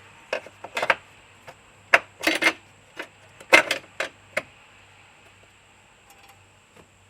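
Irregular metallic clinks and knocks from a car battery hold-down bracket and its bolt being handled, about a dozen in quick succession, stopping about four and a half seconds in.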